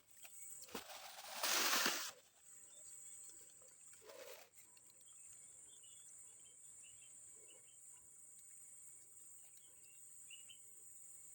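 Steady high-pitched chorus of insects, crickets by the sound, with faint short chirps, from the rice field. A loud rustling noise about a second in and a shorter one around four seconds break over it.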